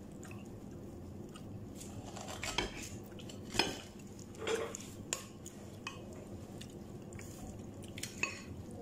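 Faint eating-by-hand sounds: fingers picking food from a glass bowl, giving scattered soft clicks and taps against the glass, with quiet chewing.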